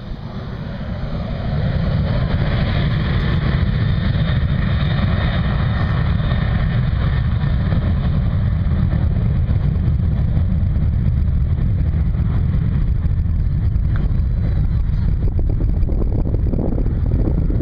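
Jet airliner's engines at takeoff thrust during its takeoff roll: a loud, steady rumble that swells about two seconds in, with a faint high whine over the first few seconds.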